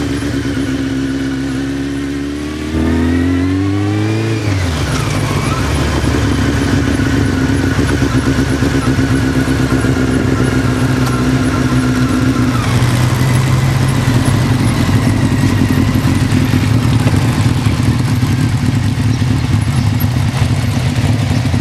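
Motorcycle engines on the move, with wind and road noise. The engine note rises under acceleration about three seconds in, drops at a gear change, holds steady, then falls away about thirteen seconds in to a lower, even running.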